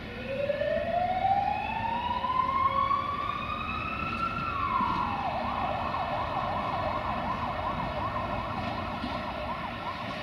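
Emergency-vehicle siren: a wail rising slowly in pitch for about four seconds, dropping sharply, then switching to a fast warbling yelp.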